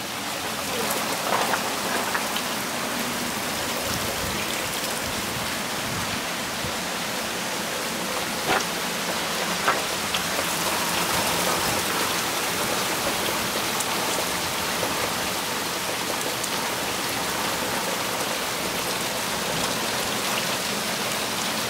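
Heavy rain mixed with hail falling steadily on the lawn, street and porch, with a few sharp ticks now and then.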